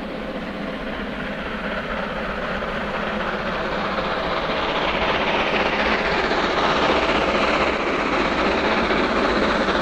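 DRG Class 01 two-cylinder Pacific steam locomotive working hard up a steep grade with a heavy train, its exhaust blasting as it approaches, growing steadily louder.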